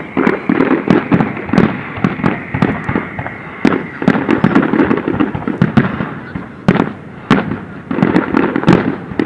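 Fireworks display: a dense, rapid run of bangs and crackling bursts, several a second. A high whistle fades out over the first two seconds.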